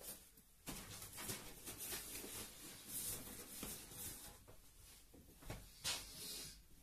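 Rustling and soft knocks of a fabric tent bag being carried and set down on a bed, with footsteps on the floor.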